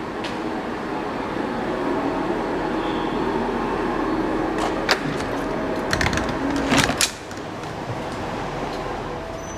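Stationary Siemens-Duewag U2 light-rail car humming at a platform: a steady electrical and ventilation drone with a few held tones. There is a sharp knock about five seconds in, then a cluster of knocks and clatter around six to seven seconds in as the car is boarded. After that the drone is heard more muffled from inside the car.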